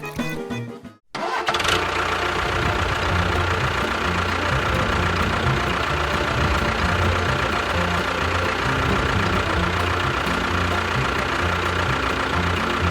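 Music stops about a second in, and after a moment of silence a motor starts and runs steadily, with a constant whine over an uneven low rumble.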